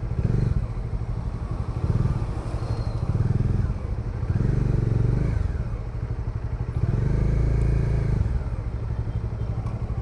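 Bajaj Dominar 400's single-cylinder engine running under way, its note swelling and easing repeatedly as the throttle is opened and closed.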